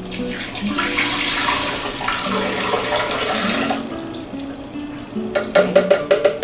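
Liquid strawberry gelatin mixture poured from a pitcher into a plastic blender jar: a splashing pour lasting about three and a half seconds as the jar fills. Near the end comes a quick run of light clicks.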